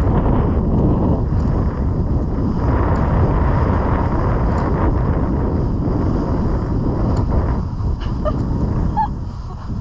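Wind buffeting an action camera's microphone as the skier runs downhill, with the skis scraping over groomed snow; a steady, loud rumble.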